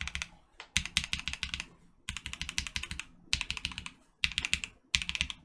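Typing on lubed Durock Lavender linear switches (Krytox 205g0, filmed, 65 g springs) in a Portico mechanical keyboard: about five short bursts of rapid keystrokes with brief pauses between. Each burst has a muted clack.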